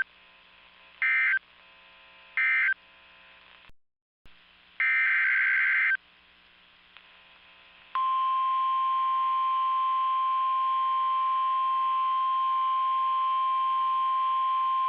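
Weather radio emergency alert signalling. Three short screeching SAME data bursts, about a second apart, close the previous warning. After a brief dead gap, one longer SAME header burst is heard. About eight seconds in, the steady single-pitch NOAA Weather Radio warning alarm tone begins and holds.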